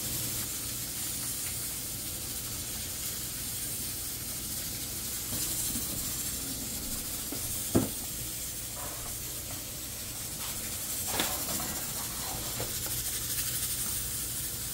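Pressure cooker hissing steadily as steam escapes from its valve while it cooks under pressure. A single sharp knock comes about eight seconds in, and a few lighter clinks of a pot lid and spoon follow a few seconds later.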